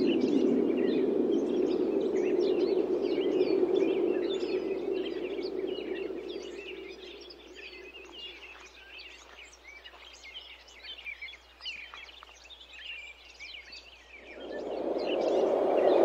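Wind gusting, dying away about halfway through and rising again near the end, with small birds chirping throughout.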